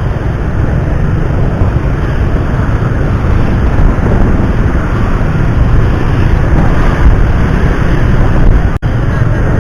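Loud, steady rush of wind buffeting the microphone over the road noise of a moving vehicle, with a momentary break near the end.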